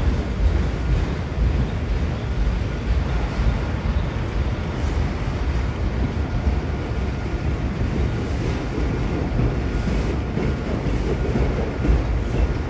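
Freight train of autorack cars rolling past, a steady rumble of steel wheels on the rails, with wind buffeting the microphone.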